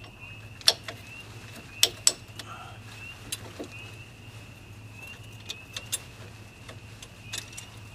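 Scattered sharp metallic clicks and clinks from hand work on a car's front wheel hub while a new wheel stud is being fitted, over a steady low hum and a faint high whine.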